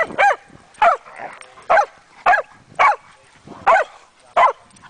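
A dog barking repeatedly, about eight short, sharp barks at uneven intervals. It is jealous barking at other dogs playing with its companion.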